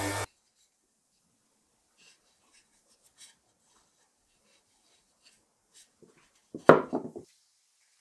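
Faint scattered taps and rubs of hands handling a wooden axe handle. About two-thirds of the way in comes one short, loud pitched sound lasting about half a second, a voice-like call.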